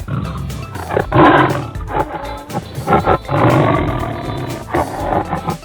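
Tiger growling: two long, rough growls, the first about a second in and a longer one from about three seconds in. Background music plays underneath.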